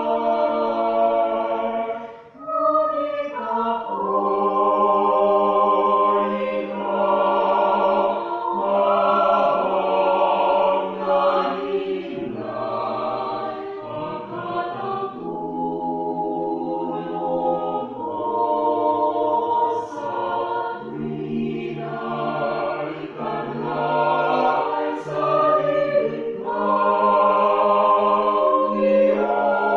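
Choir singing in held chords that change every second or two, with a short break for breath about two seconds in.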